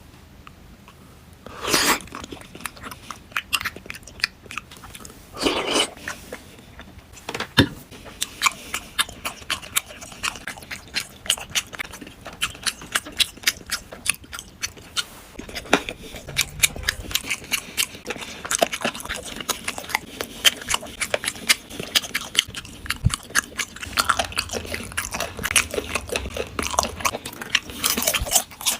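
A person chewing crunchy snacks close to the microphone. Rapid, sharp crunches come thick and fast from several seconds in, after a few louder bursts of noise near the start.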